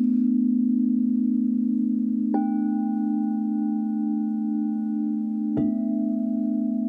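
Crystal singing bowls: a deep tone with a slow pulse holds throughout. Two higher bowl notes are struck with a mallet, one a little over two seconds in and another about five and a half seconds in, and each rings on over the drone.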